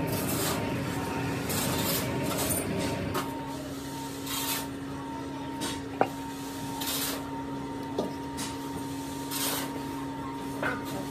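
A steady machine hum with repeated short bursts of hiss, and a couple of sharp metal clinks as an iron pattern plate and mould flasks are handled, the loudest about six seconds in.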